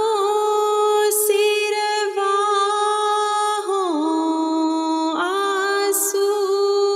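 A single voice singing an unaccompanied Urdu nazm, holding long drawn-out notes that bend slowly in pitch, dipping lower about halfway through and rising back near the end, with short hissy breaths between phrases.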